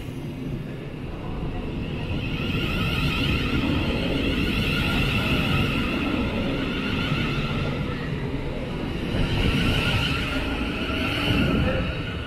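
Thameslink Class 700 electric multiple unit accelerating away from the platform: a whine from its traction equipment, coming in two spells, over the rumble of wheels on rail.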